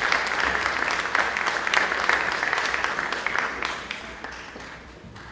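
Audience applauding, the clapping thinning out and fading away about four seconds in.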